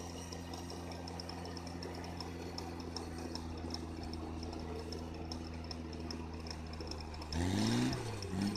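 Winch running under load, reeling in its steel cable and drawing the vehicle forward through snow: a steady mechanical hum with regular light clicking about four times a second. Near the end a brief louder sound rises and falls in pitch.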